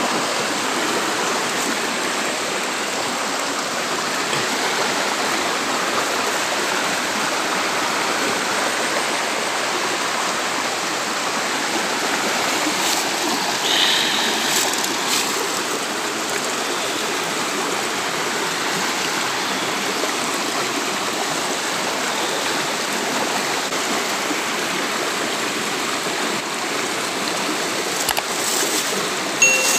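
Water of a small rocky stream rushing steadily over stones. A plastic bag crinkles briefly about halfway through and again near the end.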